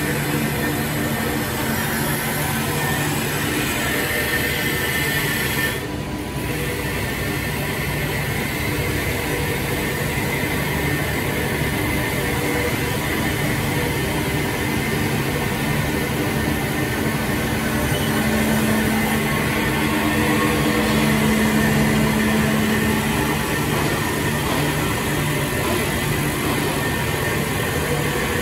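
Woodmaster two-spindle CNC wood lathe with automatic feeder running: a steady machine hum with a low drone, dipping briefly about six seconds in and growing a little louder for several seconds past the middle.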